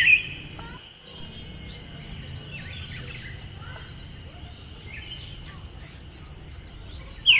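Female Siberian thrush giving a sharp call, a quick note sweeping down and then up, right at the start and again near the end. Between the calls come faint chirps of other birds over a steady thin high tone.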